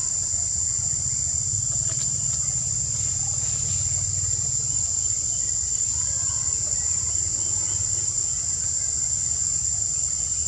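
Steady high-pitched insect chorus, one unbroken drone, with a low rumble beneath it.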